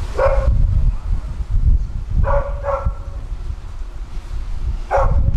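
A dog barking four times: one bark at the start, a quick pair about two seconds in, and one more near the end, over a steady low rumble.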